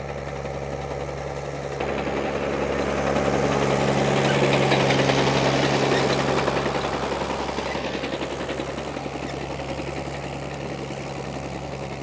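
Crawler tractor's engine running steadily under load as it pulls a mounted multi-furrow plough past. It grows louder toward the middle, then fades.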